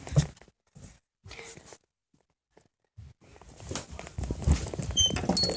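Footsteps and rustling handling noise as a tablet is carried around hastily. It cuts to dead silence for about a second near the middle, then the shuffling and thumping pick up again and grow louder.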